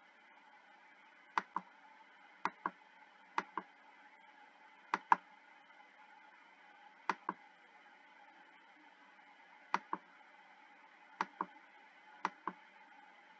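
Computer mouse button clicked about eight times, each a quick pair of clicks, one every one to two seconds, as slides in a document are paged through.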